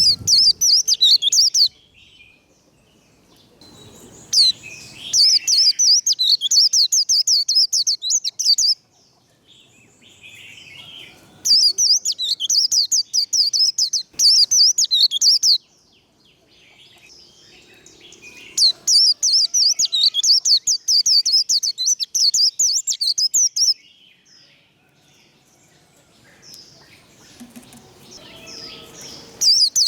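White-eye (vành khuyên) singing its fast, high, twittering 'líu' song in bouts of about four to five seconds, with short pauses between bouts.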